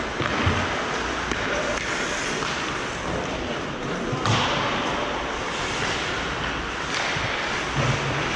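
Hockey game play in a large hall: steady rink noise with indistinct shouting and a few sharp knocks and thumps of play against the boards, the loudest about four seconds in.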